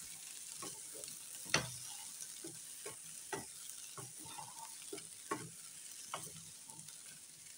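Wooden spoon stirring githeri (maize and beans) with fried onions in a stainless steel saucepan: irregular scrapes and clacks against the pan, the sharpest about one and a half seconds in, over a faint sizzle of frying.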